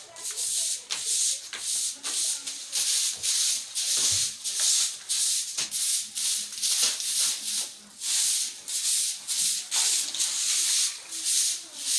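A short-handled grass broom sweeping a bare cement floor: quick repeated swishing strokes, a few each second, with brief pauses between runs of strokes.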